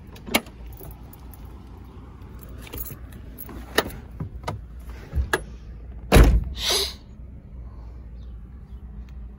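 A string of sharp clicks and knocks from handling around a car's interior door panel and seats, over a steady low hum. The loudest is a heavy thump about six seconds in, followed closely by a second knock.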